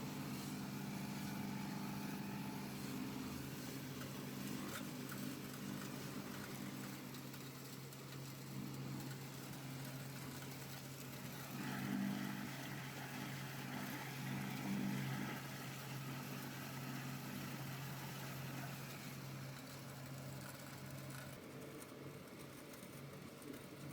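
Electric soy milk grinding machine running steadily, its stone grinder and motor giving a low, even hum. Its noise swells briefly twice about halfway through.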